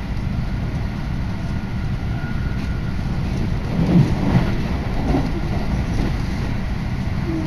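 Steady running rumble of an electric commuter train, heard inside the passenger car, with a brief louder burst of noise about four seconds in.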